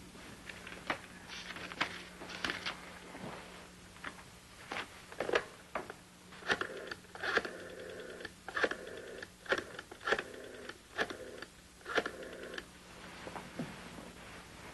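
Rotary desk telephone being handled and dialled: a few clicks as the receiver is taken up, then a run of sharp clicks with the dial whirring back between them over about six seconds.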